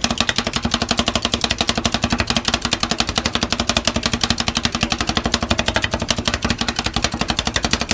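Metal spatulas chopping rapidly on a steel cold plate as a rolled-ice-cream base is mixed: a fast, even tapping of about ten strikes a second, over a steady low hum.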